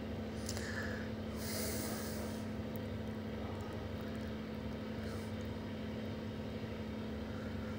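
Steady mechanical hum of running kitchen equipment, with a short hiss about a second and a half in.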